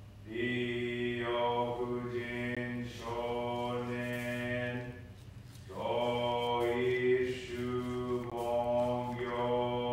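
A man chanting a Buddhist sutra in Japanese-style Jodo Shinshu liturgy, in long, held tones, with short breaks between phrases about three seconds and five and a half seconds in.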